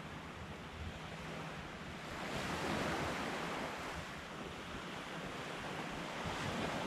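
Surf washing on a beach, a steady rush of waves that swells about two to three seconds in, with wind rumbling on the microphone.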